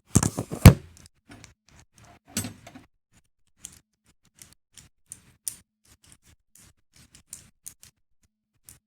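Handling clicks and knocks of a pneumatic pencil grinder and its air hose fitting: a quick cluster of knocks in the first second, then sparse light clicks and clinks.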